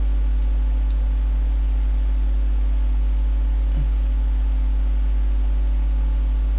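Steady, loud low electrical mains hum with its overtones, unchanging throughout, with one faint click about a second in.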